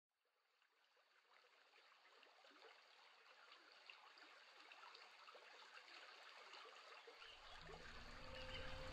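Stream water trickling and gurgling, fading in from silence and growing slowly louder while staying faint. About seven seconds in, a low steady hum joins it.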